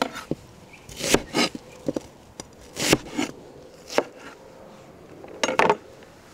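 Chef's knife slicing a red onion on a wooden cutting board: a string of irregular sharp knocks as the blade cuts through and strikes the board.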